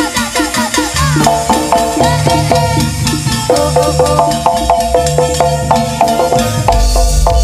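Live jaranan gamelan music: a fast repeating pattern of struck metal pitched notes over drumming, with a few sliding high notes in the first second. A deep low boom comes in near the end.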